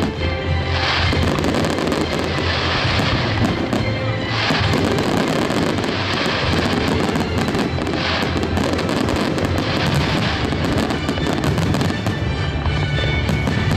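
Fireworks display: a continuous run of bangs and crackling from bursting aerial shells, with music playing alongside.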